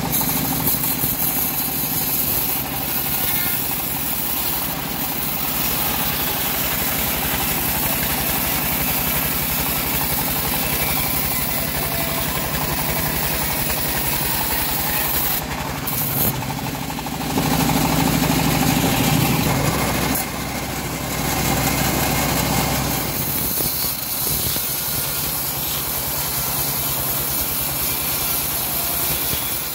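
Home-built band sawmill running steadily as a teak log is fed through its band blade, a constant machine hum that swells for a couple of seconds a little past halfway.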